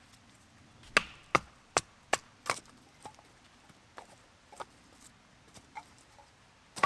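Wood being chopped: five quick, sharp knocks in a steady rhythm starting about a second in, then scattered lighter cracks and clicks of wood, and one more loud knock near the end.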